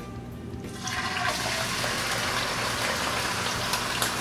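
Thin-sliced marinated beef hitting a hot oiled pan and sizzling. The hiss starts about a second in and holds steady as the meat fries.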